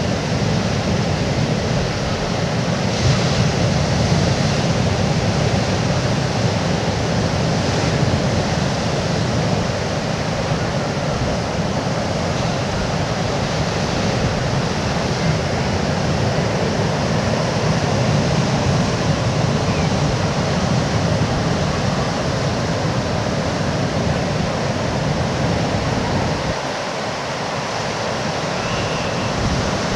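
Ocean surf washing onto a beach: a steady rushing noise with a low rumble that eases for a moment near the end.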